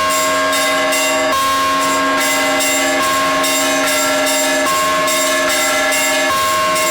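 Russian church bells ringing a Sunday peal. Small bells are struck several times a second over the sustained ring of the larger bells, whose deeper note is struck again about every second and a half.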